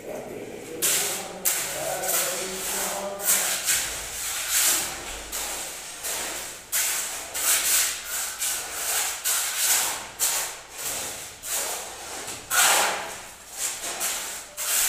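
Mason's trowel scraping and spreading wet concrete mix on a floor in repeated short strokes.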